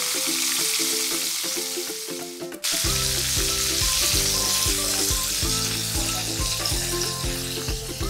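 Battered chicken pieces sizzling as they deep-fry in hot oil. Background music plays under it, dipping briefly about two and a half seconds in and then carrying on with a steady bass beat.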